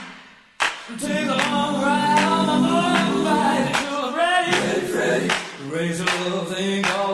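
Unaccompanied vocal music: several voices singing together in harmony, starting after a brief near-silent gap just after the beginning.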